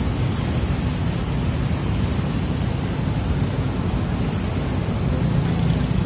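Steady low rumble of road traffic and heavy construction machinery engines running, with no single distinct event.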